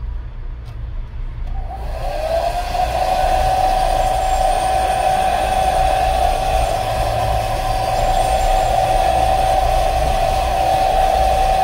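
Hair dryer switched on about two seconds in, its motor whine rising as it spins up and then holding steady with the rush of blowing air, heating a phone's glass back cover.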